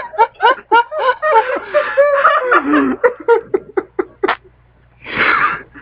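People laughing in short, choppy bursts of giggling, followed after a brief pause by a short noisy burst near the end.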